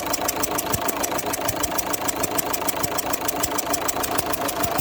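Opel Zafira 1.9 CDTI diesel engine idling with a fast, even ticking. It is the sound of compression blowing past the No. 2 injector, whose copper sealing washer needs replacing.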